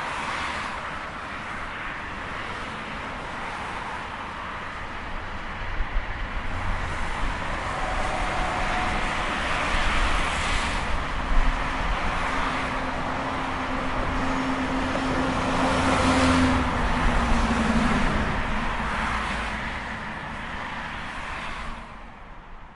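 Highway traffic: a steady rush of tyre and engine noise that swells several times as vehicles pass, with a low engine hum in the middle. It fades out near the end.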